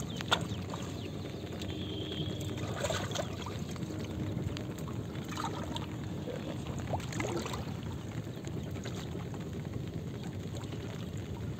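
Water splashing and trickling as hands lift and work a fishing net in shallow muddy water, with a brief knock near the start.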